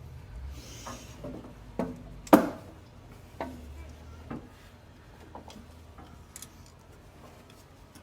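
Scattered light clicks and knocks from hands and tools working on parts in an engine bay, the loudest a sharp knock about two seconds in.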